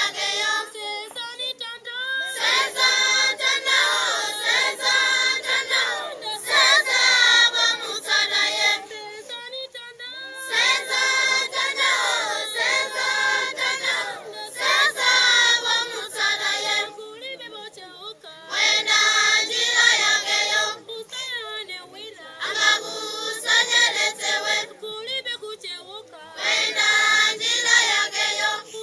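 A group of children singing together, in loud sung phrases that alternate with quieter passages and short breaks.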